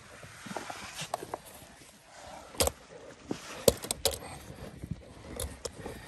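Irregular sharp knocks and clicks, about a dozen spread unevenly, over a faint hiss; the loudest comes a little past the middle.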